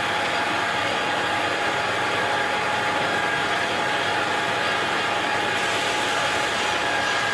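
Manual metal lathe running steadily: a constant machine whine over a mechanical rumble. A higher hiss grows louder about five and a half seconds in.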